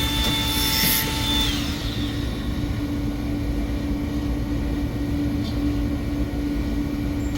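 Supply-air fan running inside its sound-absorbing panel cabinet: a steady rumble with a constant hum. A fainter high whine drops in pitch and fades out in the first second and a half.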